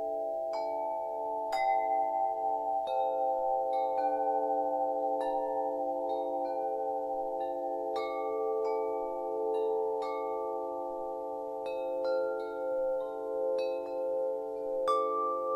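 Ambient chime music: metal chimes struck at irregular intervals, each note ringing on, over a sustained, slowly pulsing drone.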